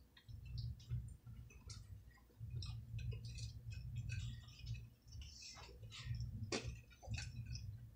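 Close-up eating sounds: chewing and small wet mouth clicks and smacks, with light clinks of a fork on a plate, over an uneven low rumble.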